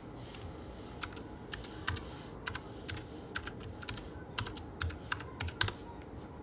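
Typing on a computer keyboard: a run of irregular key clicks that stops shortly before the end.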